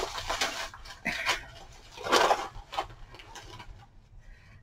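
Packing bags rustling in several short bursts as a china saucer is unwrapped by hand, dying away near the end.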